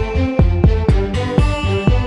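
Electronic background music with a steady, heavy beat and a repeating synth melody.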